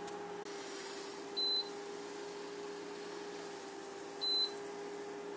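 Induction hob giving two short high beeps about three seconds apart, over a steady electrical hum.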